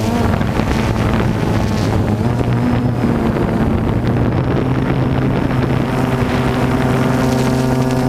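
DJI Phantom 2 quadcopter's motors and propellers humming steadily in flight, heard close up from the camera carried under it, with wind noise on the microphone. The pitch steps slightly up and down a couple of times.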